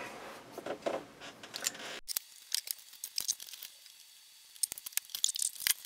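Light, irregular clicks and rattles of metal and plastic parts being handled inside an opened pop-up toaster, as fingers work at its plastic switch block and metal frame, in small clusters of taps.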